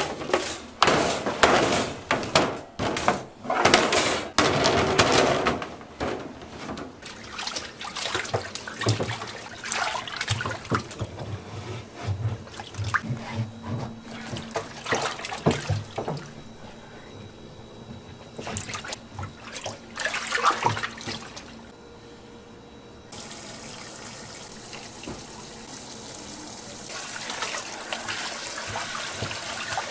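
Water running from a tap into a sink, with knocking and clattering of things being handled in it. After about twenty seconds it gives way suddenly to a steady rush of running water that swells near the end.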